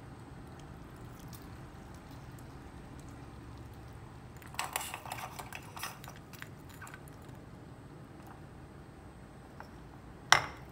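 Sugar syrup dropped into a glass of ice water hardening at once into candy, crackling and clicking for about a second and a half as it snaps and falls against the glass. Near the end, one sharp clink on the glass.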